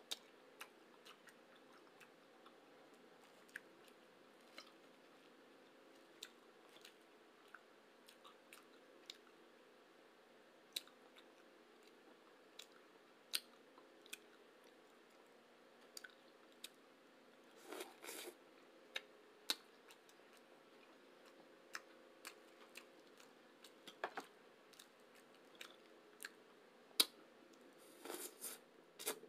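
Quiet eating: soft chewing with scattered sharp clicks of a fork against a plate, over a faint steady hum.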